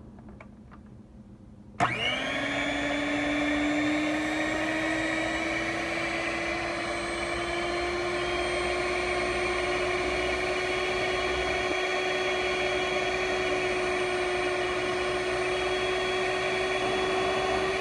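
Dash 250-watt electric stand mixer switched on about two seconds in, its motor then running with a steady whine that creeps slightly up in pitch as the dough hook kneads bread dough. Really loud.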